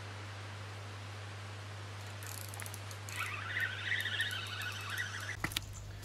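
Faint bird chirping and chattering over a steady hiss and low hum, starting about two seconds in; near the end a few sharp clicks.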